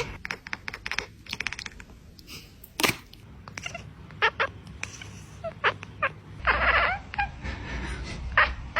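A series of sharp clicks and taps, then a short cat meow about six and a half seconds in, followed by a few more clicks.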